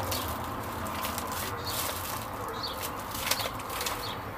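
Plastic food packaging rustling and crinkling as packets are handled, with a few light knocks, over a steady hum of road traffic. A few faint, short high chirps come through now and then.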